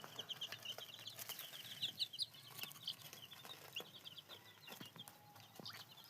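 Chicks peeping: a dense chorus of short, high-pitched cheeps, several a second, with a few faint clicks.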